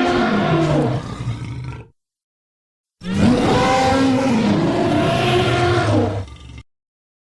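Designed large theropod dinosaur roar sound effects. One roar trails off in the first two seconds. After a second of silence, a second long roar runs for about three and a half seconds, its pitch bending and then dropping as it fades out.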